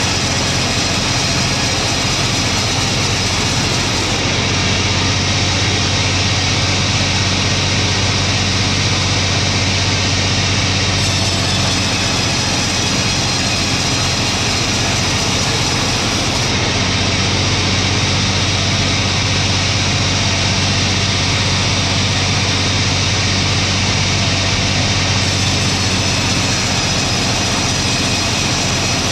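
Engine-driven sawmill running steadily while sawing a log into slab boards: an even low engine hum under a constant hiss of cutting. The high hiss shifts slightly in strength every several seconds.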